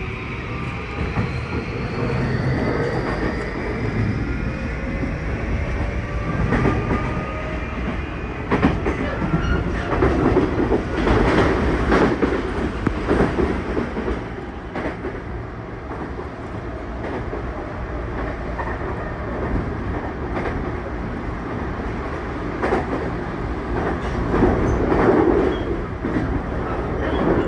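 Tokyu 2020 series train's Mitsubishi full-SiC MOSFET VVVF inverter and traction motors, a loud motor whine rising in pitch as the train accelerates away from the station; a steady high tone in the whine cuts off about two seconds in. Over the running rumble the wheels clack over rail joints, in bunches about a third of the way in and again near the end.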